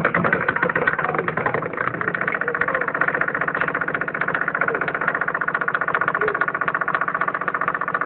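Motorised earthquake shake table running, a steady, fast rattling buzz.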